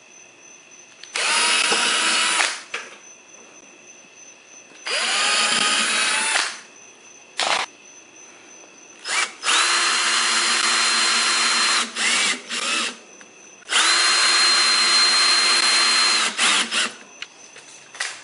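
Cordless drill/driver driving screws through rubber anti-slip tread into a mower wheel, in four main runs of about one to two and a half seconds with a few short blips between. Each run spins up quickly to a steady whine.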